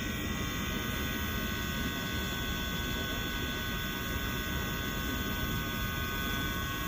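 Worn direct-drive wash motor of an LG dishwasher running with a loud noise: a steady whine of several high tones over a low rumble. The motor has failed after less than two years.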